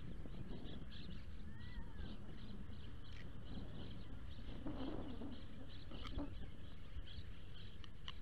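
Wind rumbling on the microphone while a bird chirps rapidly in the background, about three high chirps a second, with one short rising-and-falling call about two seconds in. A few light clicks and scrapes come from a fish being cleaned with a knife on a concrete wall.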